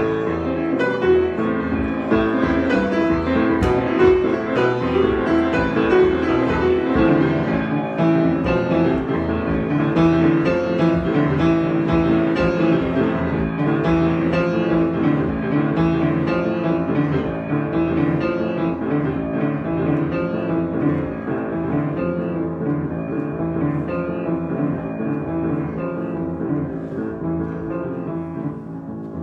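Piano improvisation, played continuously with many notes, growing gradually softer toward the end.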